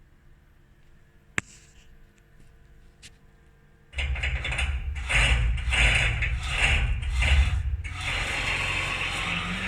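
One sharp click, then about four seconds in the Haas CNC mill's Z axis starts jogging with a loud ratcheting, clicking noise that pulses about two to three times a second. The noise comes after a crash of the spindle into the tool magazine, and the owner suspects the Z-axis motor brake, a servo motor bearing, the thrust bearing or the ballnut.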